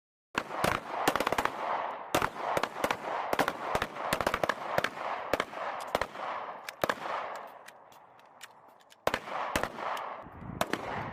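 Several pistols firing at once along a firing line: many sharp shots at irregular, overlapping intervals, each with an echo tail. The firing thins out for a moment about eight seconds in, then picks up again.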